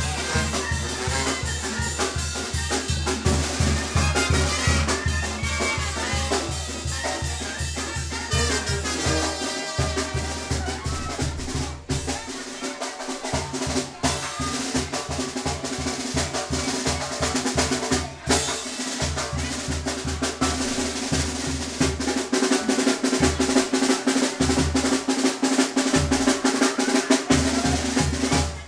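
Live Mexican banda brass band playing dance music: tuba, horns, snare and bass drum with a steady beat. The low bass line drops out briefly a few times in the second half.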